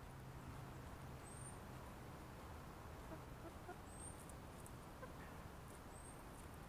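Chickens clucking softly while they peck at sprouted-grain fodder, faint, with a few short high chirps now and then.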